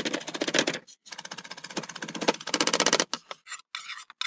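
Weber Deluxe chef's knife rapidly chopping parsley on a wooden cutting board: a fast, even run of blade knocks, a brief pause just under a second in, then more chopping, slowing to a few separate knocks near the end.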